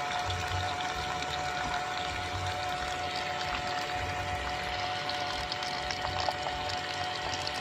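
Miniature water pump driven by a small salvaged dynamo (DC motor), running and pushing water that pours and splashes steadily over a constant thin whine.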